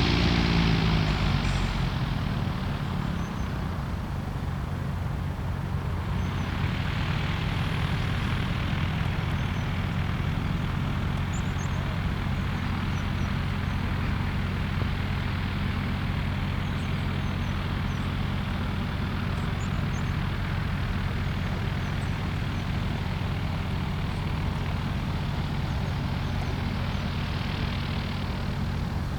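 Light piston aircraft engine and propeller running at low power, its pitch dropping over the first couple of seconds and then holding steady.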